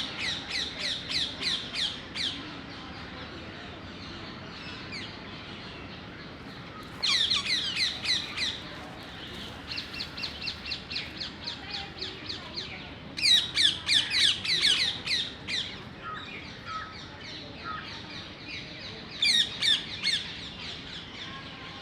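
Birds calling in bouts of rapid, repeated sharp notes, about five or six a second. Each bout lasts one to three seconds, with the loudest bout about halfway through.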